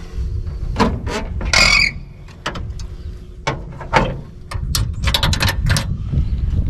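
Hood of a 1989 Toyota 4Runner being opened and propped up: a series of sharp metal clicks and knocks from the latch and the prop rod, with a brief squeak as the hood lifts, over a low rumble of wind on the microphone.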